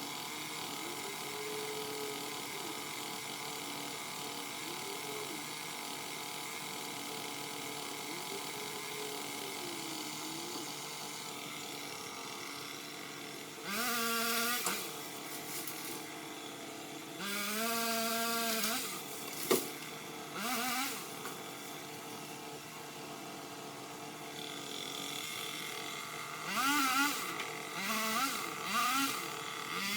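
Craftsman power limb cutter (pole saw) run in short bursts, its pitch sagging and recovering as it cuts into branches, with one sharp crack about two-thirds of the way in. Before the bursts, a steady hum with slow rises and falls in pitch.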